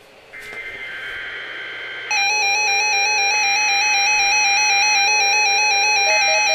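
NOAA weather radios going off for a required weekly test. Electronic data tones start about half a second in, and about two seconds in a much louder alarm tone joins, warbling rapidly between two pitches.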